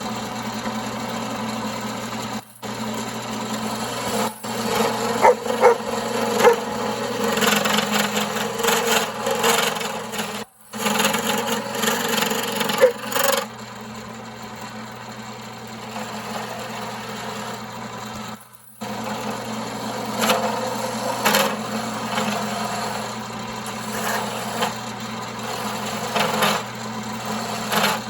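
A 1939 Pow-R-Kraft wood lathe running with a steady hum while a turning tool scrapes and cuts a spinning wooden blank, with occasional sharper catches. The sound drops out abruptly for a moment four times.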